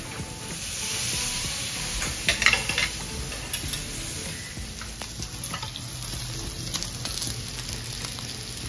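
Pork belly sizzling on a tabletop grill pan, with a few sharp clinks of metal chopsticks against a ceramic bowl a little over two seconds in.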